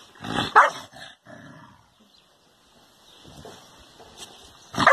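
Dog barking at its own reflection in a mirror: one loud bark about half a second in, a few softer sounds just after, then quiet until another bark starts right at the end.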